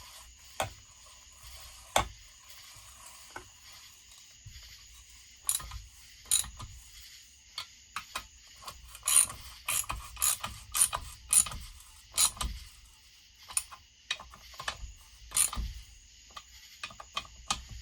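Hand ratchet clicking in short irregular strokes while bolts on a chainsaw are snugged down by hand so the threads don't strip.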